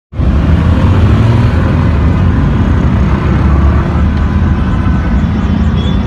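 Heavy mixed road traffic: motorcycles, scooters and cars passing, their engines and tyres making a loud, steady, dense rumble.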